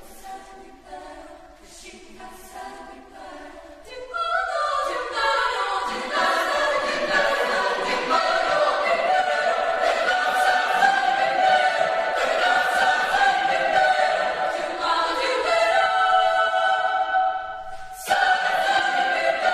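Mixed-voice chamber choir singing a cappella. A soft passage gives way to the full ensemble coming in loudly about four seconds in. Near the end the sound dips briefly, then comes back in suddenly and loudly.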